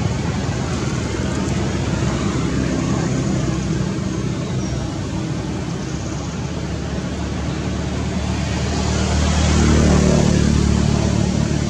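Steady road traffic noise with engine hum. The engine hum swells louder about nine to ten seconds in as a vehicle passes.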